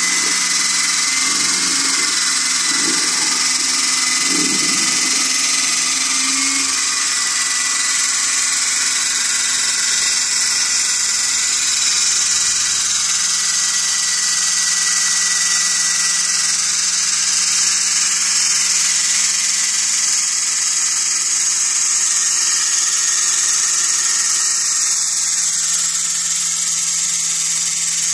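Small electric motors in a working model display whirring steadily, a high hiss over a low hum.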